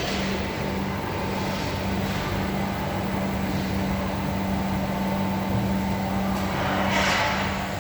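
A MAG welding arc on 3 mm stainless steel, crackling steadily, under a steady low hum, with a brief swell of hissing noise near the end.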